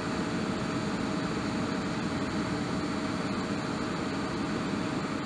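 ET41 two-section electric locomotive standing energised under the overhead wire, its auxiliary machinery running with a steady rushing noise and a thin, steady whine.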